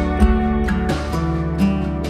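Background music led by guitar, with a steady beat.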